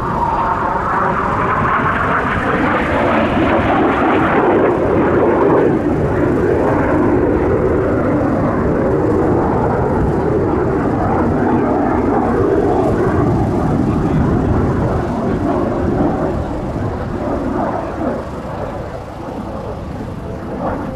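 Jet noise of BAE Hawk jet trainers flying past in formation. It is loudest and highest-pitched in the first few seconds, then settles into a lower, steady rumble that eases off slightly near the end.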